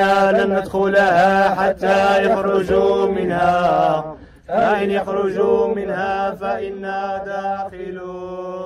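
Unaccompanied folk chanting in long, wavering held notes, with a steady low drone under it for the first half. The voice breaks off briefly about four seconds in, then picks up again.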